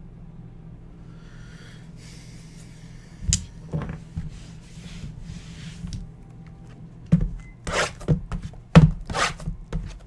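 Sealed cardboard trading-card boxes being handled: a soft rubbing slide, one knock about three seconds in, then a quick run of sharp knocks from about seven seconds on as the boxes are picked up and set down on the table, all over a steady low hum.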